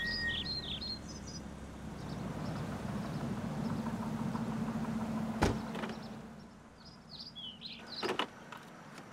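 Birds chirp over a low steady hum, then a car door shuts with a solid thud about five and a half seconds in. A second, smaller clunk follows near the end as the gear selector is moved.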